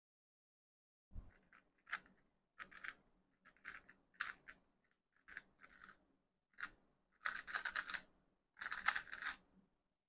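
Plastic Rubik's Cube being turned by hand: short clicking and rattling bursts as the layers snap round, starting about a second in. Near the end come two quicker runs of turns.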